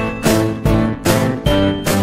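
Upbeat background music with a steady beat and bright pitched notes.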